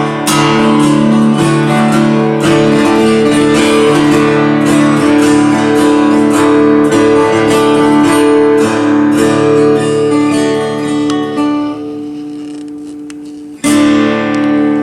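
Acoustic guitar music with strummed chords. It fades out a little before the end, then starts again abruptly.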